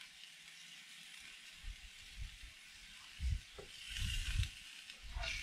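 Faint sizzle of a steak searing on grill grates over charcoal, growing a little stronger near the end, with a few soft low thumps.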